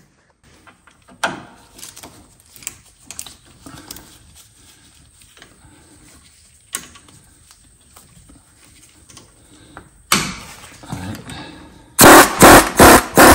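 Light clinks and taps of hand tools on the suspension, then an impact gun hammering on the bottom nut of a sway bar link: one short burst about ten seconds in, then a loud run of repeated bursts near the end as the nut comes loose.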